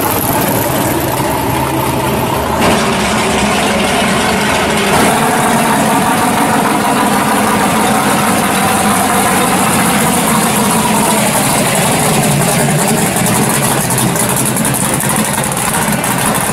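A pro-street 1972 Chevelle SS drag car's V8 engine idling steadily as the car rolls slowly along.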